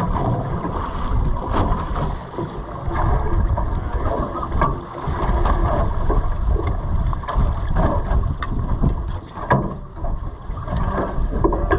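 Wind buffeting the microphone aboard a boat at sea, a heavy uneven rumble, with a few sharp knocks.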